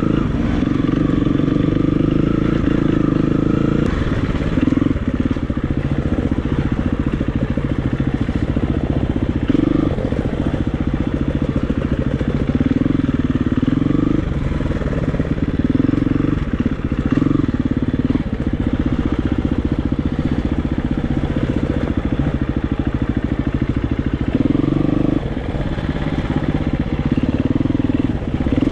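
KTM 350 EXC-F's single-cylinder four-stroke engine running on an enduro ride, its note rising and falling again and again as the throttle opens and closes.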